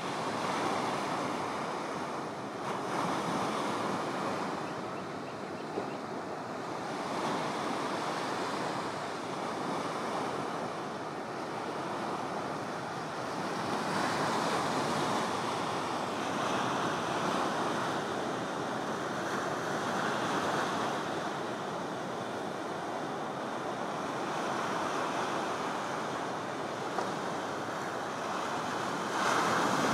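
Ocean surf breaking on a reef: a steady rush of waves that swells and eases every few seconds.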